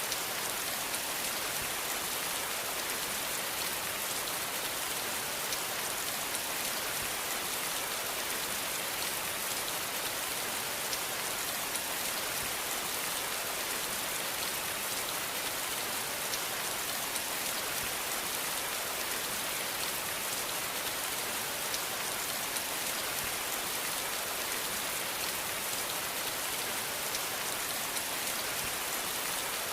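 Steady rain falling on a surface, an even hiss with fine drop patter, no change throughout.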